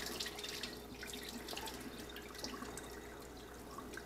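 Kitchen faucet running quietly into a bowl in the sink, with small drips and splashes, as brined bass roe is drained.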